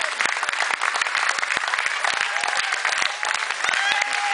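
Theatre audience applauding, a dense, steady patter of many hands with some loud claps close by. Drawn-out high calls ring out over it in the second half.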